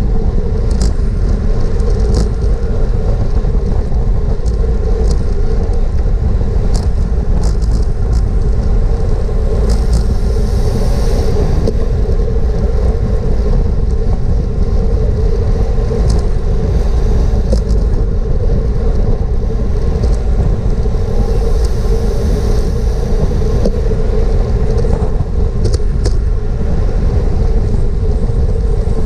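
Steady wind rush and road rumble on a GoPro mounted on a racing bicycle ridden at speed, with scattered short clicks.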